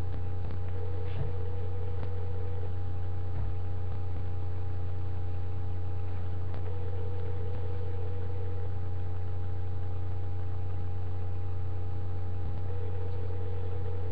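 Telephone ringback tone heard over the call, a two-second ring with a four-second gap, twice, then a third ring starting near the end. Under it runs a loud steady low hum.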